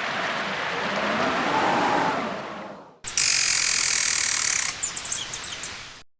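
Blizzard wind howling in gusts, its whistle rising and falling, then fading out. About halfway through a loud hiss starts abruptly and breaks into a run of sharp crackles that die away.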